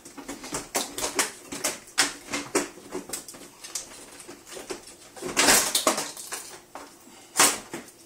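Plastic front panel of a Bosch dishwasher door being pried loose: a run of small clicks and knocks as it comes free of its clips. A louder scrape comes about five and a half seconds in, and a sharp knock comes near the end.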